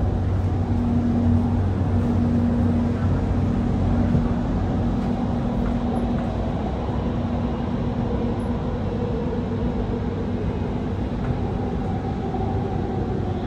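Doha Metro train running through a tunnel, heard from inside the car: a steady rumble of wheels on rail with a low hum, and a faint motor whine that falls in pitch over the last few seconds.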